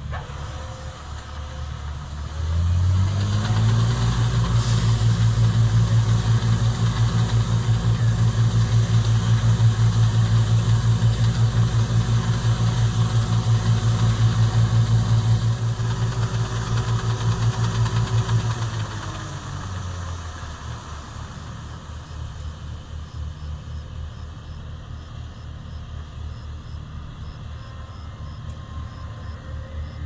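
Laverda M304 combine harvester running steadily, with its engine and unloading auger pouring grain into a trailer. The hum steps up louder a few seconds in, holds steady while the grain unloads, and drops back to a quieter run about two-thirds of the way through.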